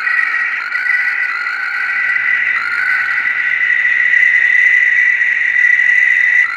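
A steady, shrill chorus of calling frogs, a dense high drone of overlapping voices that holds without a break.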